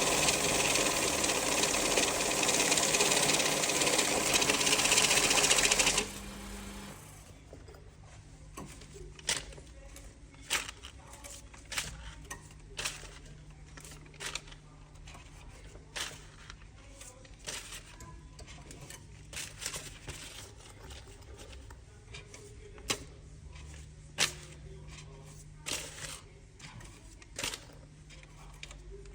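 Electric banknote counting machine running, a fast steady whirr of notes feeding through, which stops about six seconds in. After that come scattered clicks and rustles of banknotes being handled.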